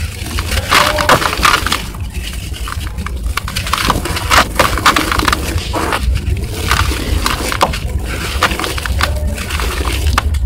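Lumps of dry packed dirt crushed and crumbled between bare hands, with gritty crunching and crackling in repeated bouts as the clods break and loose grit falls back into the bucket.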